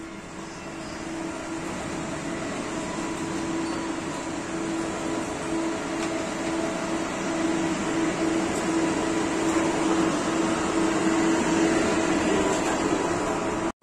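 Steady hum of an electric airport rail train standing at the platform, its equipment and ventilation sounding together with one constant low tone, gradually growing louder as its doors open for boarding.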